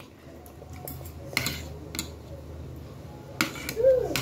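A few separate light clicks and clinks of metal cutlery against a plate of rice, with a brief vocal sound near the end.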